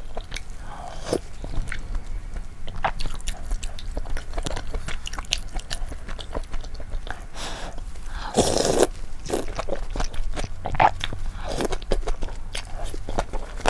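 Close-miked chewing and biting of malatang with chewy noodles, many small wet clicks, with one longer, louder mouth sound about eight seconds in.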